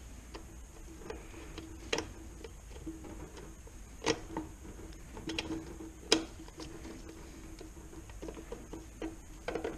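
Scattered sharp metal clicks and knocks, about half a dozen, as parts of a VW 085 manual gearbox are handled and tried for movement during a teardown, over a steady faint hum.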